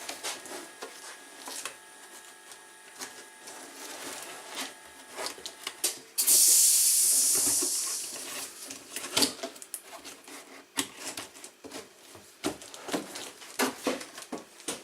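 Brush cutter parts and packaging being handled: scattered clicks, knocks and plastic rustling, with a loud hissing rush about six seconds in that fades out over nearly two seconds.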